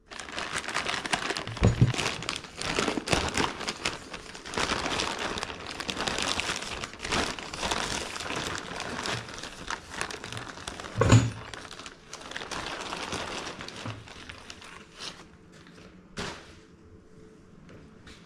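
Clear plastic shipping bag crinkling as it is pulled off a new disc brake spindle and rotor assembly, with a heavy thump about eleven seconds in. The crinkling dies down after that, with a last knock a few seconds later as the part is handled.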